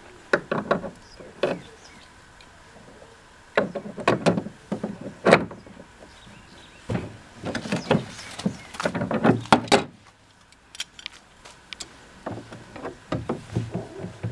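Pliers and a wrench clicking and scraping on a brass drain fitting as it is tightened into the side wall of a plastic stock tank. The sound comes in four short bursts of strokes with pauses between.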